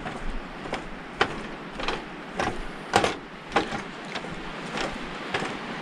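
Footsteps on a boardwalk: an even walking pace of sharp knocks on the boards, a little under two steps a second.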